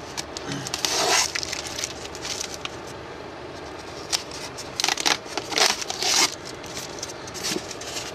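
Packing tape peeled off a styrofoam box and the foam lid worked loose by hand, heard as several short bursts of scraping and crackling.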